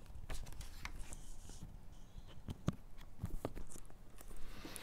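Handling noise on a clip-on lapel microphone: scattered small clicks, taps and rubbing as the mic is fiddled with against a flat object held in the hands.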